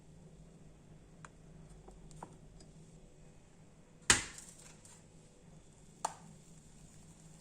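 Kitchen utensils being handled: a few faint clicks, then a sharp knock about four seconds in that rings briefly, and a lighter knock about two seconds later.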